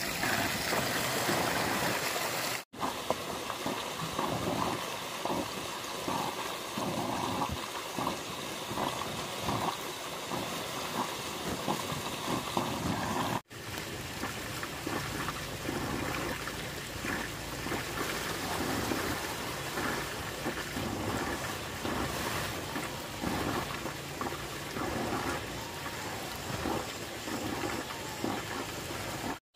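Water trickling and splashing, with irregular small splashes throughout, broken by two brief cuts to silence about three and thirteen seconds in.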